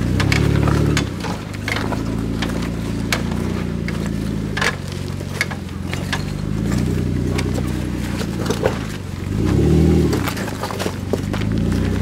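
Jeep Wrangler engine running at crawling speed over loose rock, with stones crunching and clicking under the tyres. The engine revs up briefly at the start and again about ten seconds in as it climbs.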